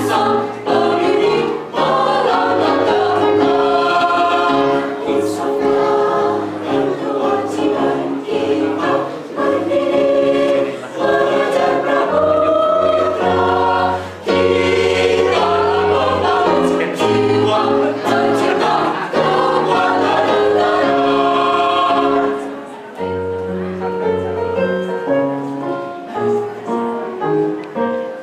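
A choir of school teachers singing a song together; the singing becomes softer about four-fifths of the way through.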